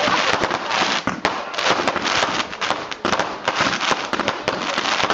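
Fireworks going off in a dense, irregular rapid run of sharp pops and crackles, with no let-up.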